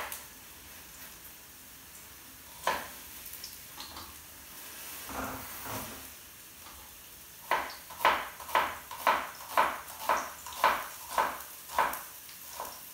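Kitchen knife chopping garlic on a cutting board. It starts with a single knock, then, about halfway through, a steady run of about a dozen chops at roughly two a second.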